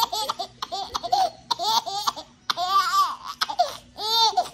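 A baby laughing in a series of short high-pitched bursts.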